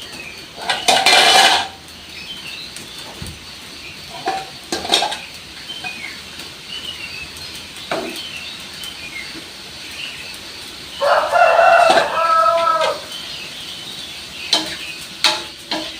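Kitchen clatter of pots and utensils with scattered clinks, and a loud clatter about a second in. A rooster crows once for about two seconds near the two-thirds mark, with small birds chirping faintly throughout.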